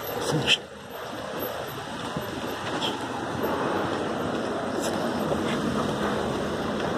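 Steady wind and street noise on a handheld phone's microphone, with a sharp knock about half a second in and a couple of faint clicks later.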